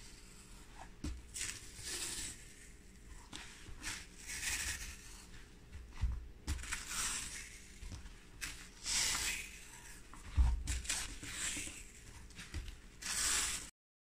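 Adhesive tape being pulled off its roll and pressed onto a jute-rope basket: a series of short, rasping peels and rubs, with a few soft bumps.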